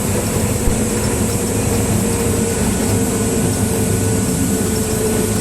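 Steady drone of a Cessna 172's four-cylinder Lycoming engine and propeller in cruise, heard in the cabin, with a steady hiss over it.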